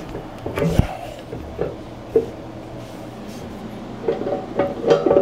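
Cast aluminum mailbox post base being worked down over anchor bolts on a plywood template: scattered knocks and clunks, a few in the first two seconds and a quick cluster about four to five seconds in.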